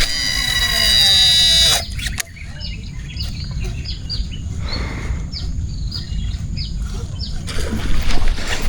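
Small birds chirping repeatedly in short, high, downward notes over a low steady rumble, after a loud whine with several tones that falls slightly in pitch and stops after nearly two seconds.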